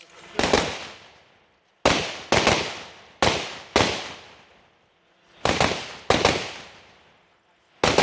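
Rifle shots fired in quick pairs about half a second apart, with short pauses between the pairs, each crack trailing off in a long echo: double-taps on targets during a USPSA rifle stage.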